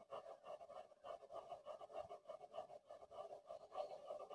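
Faint, quick, irregular flutter of milk heating in a stainless steel pot on a gas burner.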